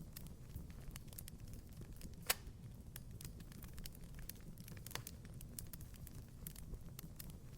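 Fireplace fire crackling: scattered small pops and snaps over a low steady rumble, with one sharper pop about two seconds in.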